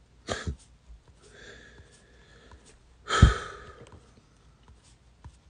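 A man breathing close to a phone's microphone: a short breath just after the start, a faint exhale, then a louder breath or sigh about three seconds in that bumps the mic and fades away.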